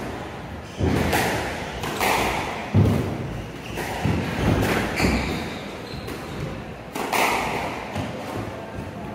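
Squash rally: the ball is struck by rackets and hits the court walls, giving a string of sharp thuds about one to two seconds apart, each ringing in the enclosed court.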